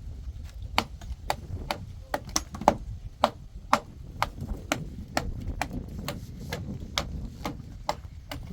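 A steady series of sharp knocks, about two a second, each with a short ring, over a low background rumble.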